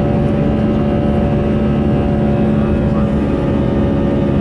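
Jet airliner cabin noise in the climb after take-off: a steady, loud rush of air and engine drone with a few steady humming tones running through it.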